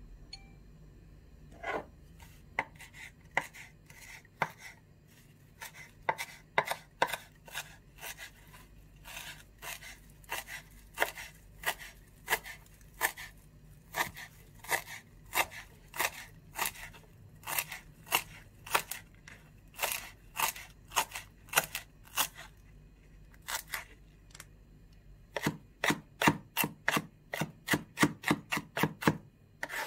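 Chef's knife chopping fresh dill on a wooden cutting board: sharp knocks of the blade on the board at about two a second, speeding up to a fast run of chops near the end.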